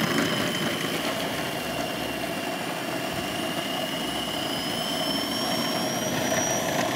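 Electric food processor motor running steadily, mixing minced meat with the other meatloaf ingredients, with a high whine that rises slightly in pitch toward the end.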